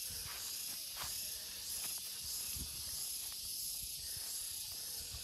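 Steady high-pitched drone of forest insects, with a few soft thuds of footsteps on the trail.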